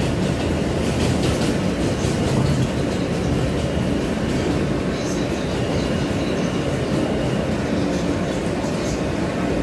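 Inside a New York City subway J train running on elevated track: a steady rumble and rattle of wheels on rails, with a faint high whine briefly around the middle.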